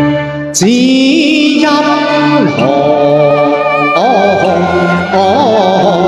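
A man singing a Cantonese opera (yuequ) aria over instrumental accompaniment, holding long notes that bend and waver in pitch. He comes in about half a second in, after a short break.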